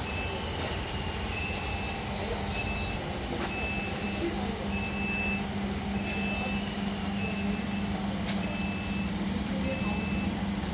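Steady running noise of an industrial air compressor and oxygen plant machinery, with a constant low hum. A short high electronic beep repeats about once a second over it.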